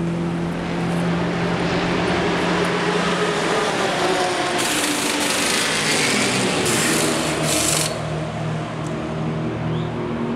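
Pneumatic wheel guns and air lines at work during a race car's tyre change, with three loud bursts of air hissing in the middle, over a steady engine drone.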